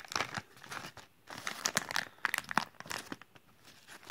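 A shiny plastic blind-bag toy package crinkling and tearing as it is handled and opened by hand: a quick, irregular run of crackles with a couple of short pauses.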